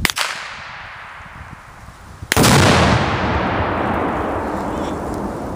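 A sharp crack right at the start, then about two seconds later the very loud blast of a magnum Sure Shot binary exploding target set off by a shot, loud enough to overload the recording, followed by a long rolling echo that slowly dies away.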